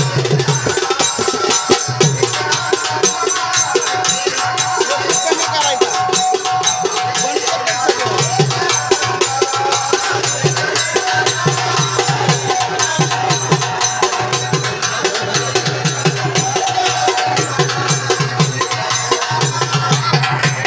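Live Marathi folk music with a fast, steady hand-drum rhythm and low drum beats under a sustained melody.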